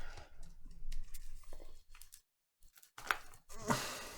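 Small clicks and scraping of repair tools working at a stuck iPhone 7 display, with a short moment of dead silence a little past halfway.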